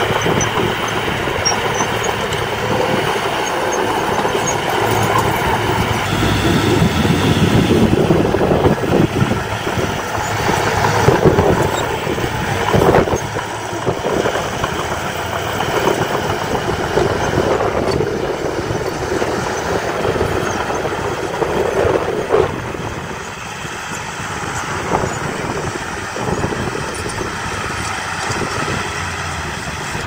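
Diesel engine of a small Komatsu crawler bulldozer working under load as it pushes soil and stone, with the clatter of its tracks. The sound grows louder for a few seconds in the middle, and there are a few sharp knocks.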